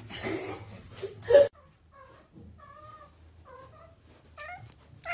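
A rustle as a large shaggy dog pounces onto a blanket on the floor, ending in a loud thump about a second and a half in. Then a cat meows about four times in short calls.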